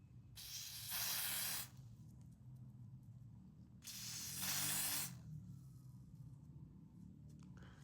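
Two long hissing bursts from an aerosol spray can, each about a second long, about three seconds apart.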